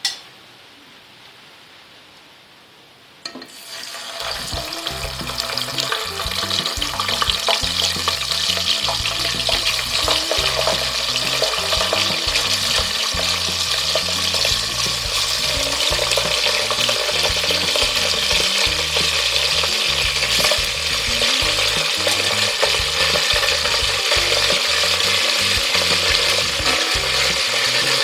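Food frying in hot oil in a pan: the sizzling starts suddenly about three seconds in, builds over the next few seconds, then goes on steadily.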